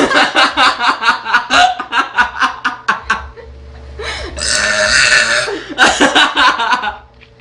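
A small girl belching loudly: a long stuttering burp of rapid pulses lasting about three seconds, then two more drawn-out burps.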